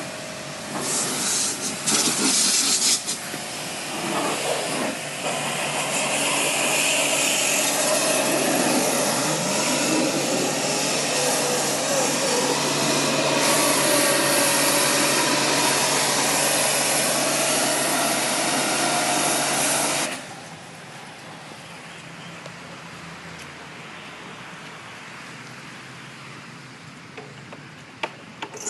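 Pressure washer gun spraying a high-pressure water jet onto a window air conditioner during cleaning: a loud, rough hiss that surges unevenly in the first few seconds, then cuts off about 20 seconds in, leaving a quieter steady hiss.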